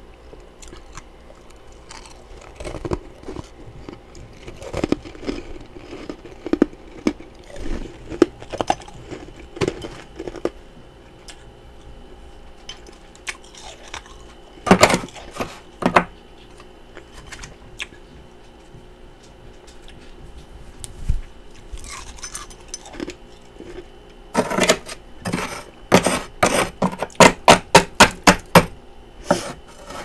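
Thick freezer frost crunched between the teeth in scattered bites, then a metal spoon scraping and chipping at the frost packed inside a mini freezer. It ends in a fast run of about ten hard scrapes near the end.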